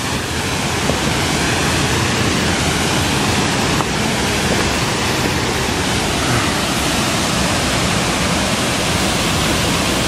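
Waterfall pouring into a rock pool: a loud, steady rush of falling water that builds over the first second and then holds even.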